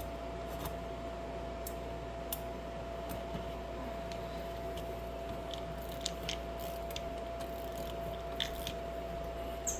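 Scattered small clicks and crunching handling noises of hands working on electrical wires and a junction box, over a steady hum.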